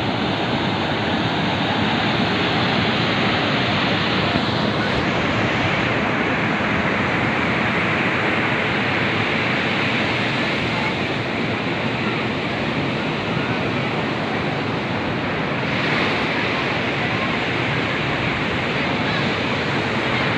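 Sea surf: a steady rush of waves washing onto the shore, swelling slightly a few seconds in and again near the end.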